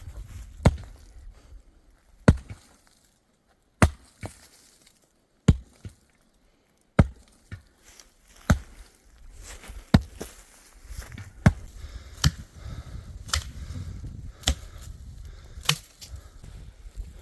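Dry wood being chopped: about fifteen sharp, separate strokes, roughly one every second.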